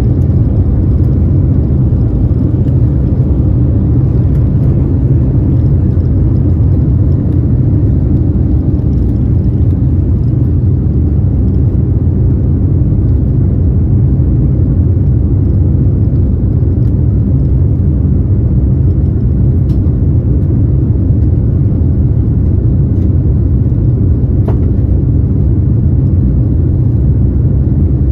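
Steady low rumble of cabin noise inside a Boeing 787 Dreamliner, from its two GEnx-1B engines and the air rushing past the fuselage, with a couple of faint clicks in the second half.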